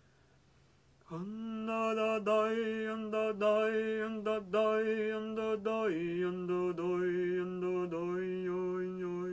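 A low voice chanting a long wordless tone, starting about a second in; it holds one note with brief breaks, then steps down to a slightly lower note about six seconds in and holds it.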